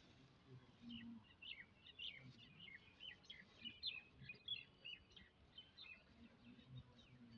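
Birds chirping faintly: a busy run of many short, quick calls from about a second in until about six seconds.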